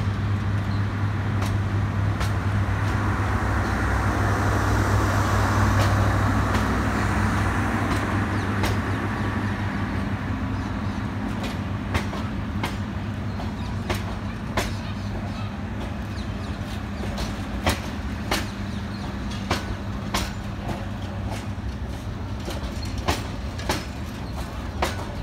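Bangladesh Railway intercity passenger train pulling out of the station: a steady low drone and rumble of the train rolling past, with wheels clicking over the rail joints. The clicks start about halfway through and come more and more often as the train gathers speed.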